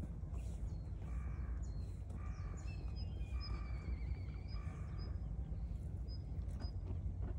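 An animal call repeated four times, about a second apart, with a thin warbling whistle running through the middle two calls, over a steady low outdoor rumble.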